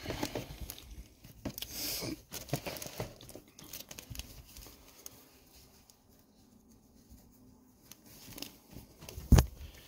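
Plastic wrapping crinkling and tearing as a cloth bandana is pulled out of it, with the cloth rustling. The handling dies away to near quiet midway, and a single sharp knock sounds near the end.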